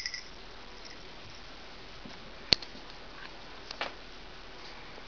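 A cat rubbing against ceramic shelf ornaments: mostly quiet soft brushing, with one sharp click about two and a half seconds in and a softer tap a little over a second later.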